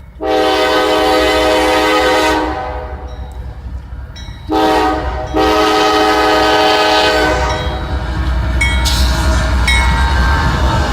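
Nathan Airchime K5LA five-chime locomotive horn sounding a chord in three blasts: a long one, a short one about four and a half seconds in, and another long one. The train then rumbles past with wheel squeal after about seven and a half seconds.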